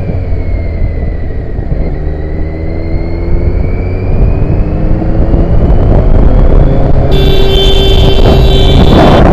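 Motorcycle riding in traffic, its engine running with a pitch that rises gradually as it speeds up. About seven seconds in, music starts over it.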